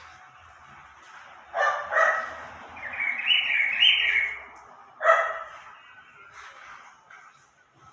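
A pet animal calling: two short bark-like yaps close together, then a wavering high chirping call, then another yap about five seconds in.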